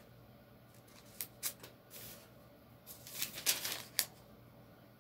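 Paper rustling in short, irregular bursts as book pages are handled, with a sharp tick about four seconds in.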